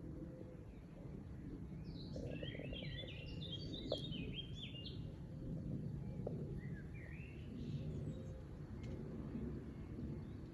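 A songbird singing outdoors in a rapid twittering phrase of short high notes about two seconds in, with shorter phrases later, over a steady low rumble of wind. A single sharp click about four seconds in.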